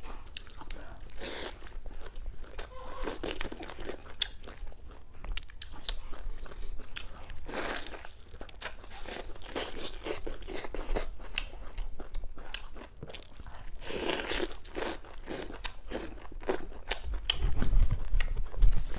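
A person eating luosifen (river snail rice noodles) with fried egg close to the microphone: wet chewing, crunching and quick mouth clicks, with a few longer, louder swells. A low rumble comes in near the end.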